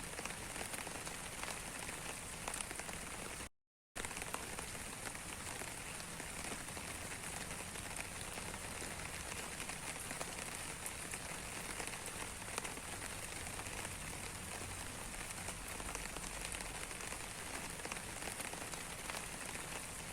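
Steady rain falling on a surface, a constant hiss dotted with the ticks of individual drops. The sound cuts out completely for about half a second around three and a half seconds in, then resumes.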